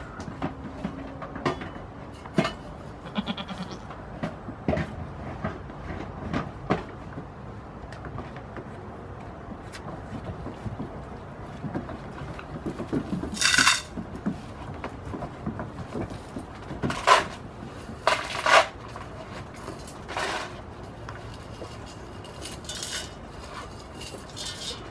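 Young goats bleating, about five loud calls from about halfway on, over short knocks and clatter of hooves and a feed tub on a wooden floor.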